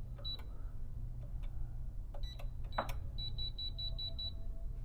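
Alarm Lock Trilogy DL2700 keypad beeping as keys are pressed: single short high beeps with key clicks. About three seconds in comes a rapid string of about six short beeps, and here the code entry did not work.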